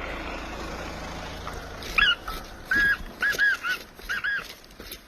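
Black francolin (black partridge) calling: a run of short, loud, arched notes in several quick groups, starting about two seconds in. Before the calls there is a steady low rumbling noise, which fades as they begin.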